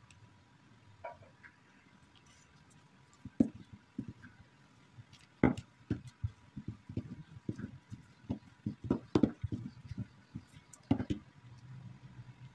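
Wooden rolling pin rolling out bread dough on a countertop: a run of irregular knocks and thuds starting about three seconds in, and thickest in the middle.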